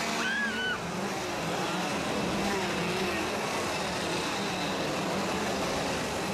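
Chainsaws running and revving in the middle of a crowd, a steady engine noise with no let-up. A brief high-pitched voice cuts through about half a second in.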